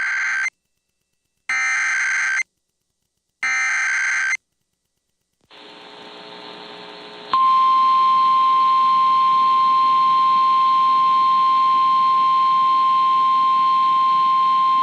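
Emergency Alert System alert on a weather radio. First come the SAME digital header bursts, buzzy coded data that encodes the alert: the end of one burst, then two more, each about a second long and a second apart. Then radio static hiss, and about seven seconds in the steady single-pitch 1050 Hz weather radio warning alarm tone starts and holds, signalling that a warning message follows.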